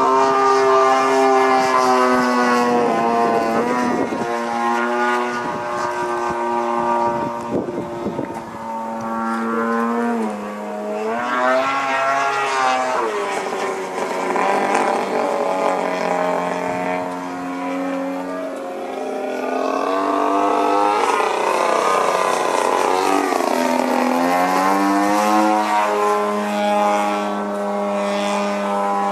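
Gasoline engine and propeller of a Hangar 9 Cap 232 80-inch RC aerobatic airplane in flight: one steady engine note that holds for stretches, drops and climbs again about a third of the way in, and sweeps down and back up about three-quarters of the way through as the plane manoeuvres.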